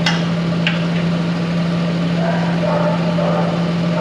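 Farm machine engine running at a steady speed: a constant low drone with two short clicks in the first second.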